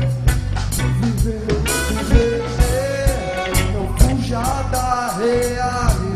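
Reggae song: a sung melody over a bass line and drum kit, with regular cymbal strokes.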